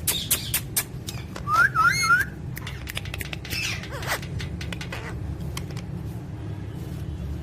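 Parrot giving a quick series of short rising whistles about a second and a half in, after a run of sharp clicks, with a fainter call a little later over a steady low hum.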